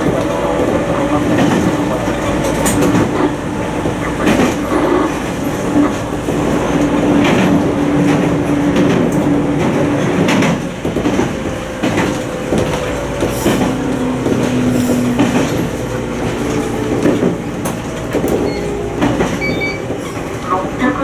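Toyama Chiho Railway 20020-series electric train (ex-Seibu 10000-series New Red Arrow) running, heard from inside the car: a steady rumble with a hum that shifts pitch a few times, and the wheels clicking over rail joints every second or few.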